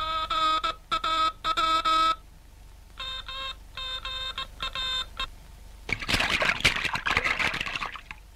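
Cartoon Morse-code signal beeps: a few electronic tones of uneven length, then an answering run of shorter, lower-pitched beeps. Then about two seconds of water splashing as bodies drop into the water.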